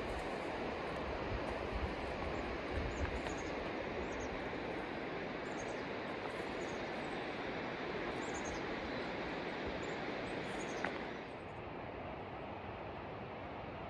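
A steady rushing hiss with faint, short, high chirps of a small bird every second or two. The hiss drops abruptly in level about eleven seconds in, with a click.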